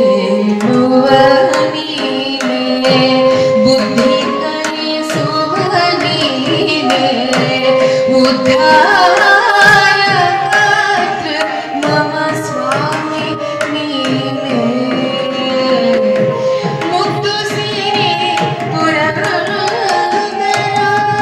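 A woman singing a devotional Kannada bhajan (a Haridasa kriti) in Carnatic style, with a wavering, ornamented melody. Tabla and a barrel drum keep a steady rhythm over a held drone note.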